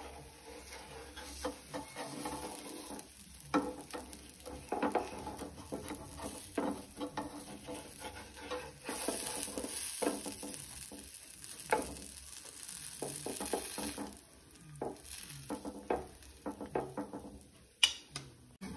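Beetroot chilla batter sizzling in a hot pan, with a spatula scraping and tapping against the pan at irregular moments.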